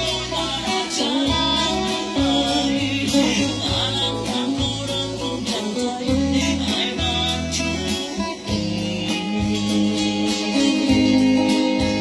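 Guitar music: a guitar picking a melody over a deep, steady bass line, with a voice singing in places.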